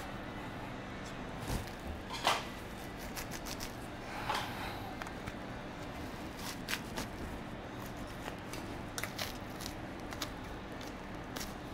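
A stiff curved boning knife cutting and scraping through a hanging bison hip as it follows the seam of the sirloin tip along the femur. It makes scattered short scrapes and ticks, with two stronger scrapes about two and four seconds in, over a steady low hum.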